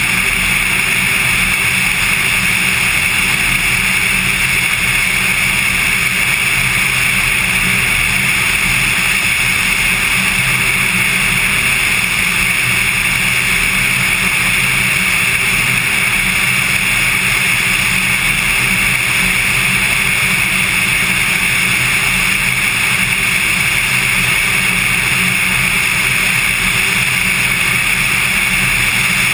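Cessna 182 in flight: a steady, loud drone of the piston engine and propeller, unchanging throughout, mixed with airflow noise.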